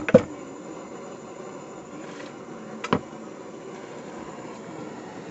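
Pestle striking a stone mortar twice right at the start, then the steady roar of a pressurised kerosene stove burner, with one more knock of the pestle about three seconds in.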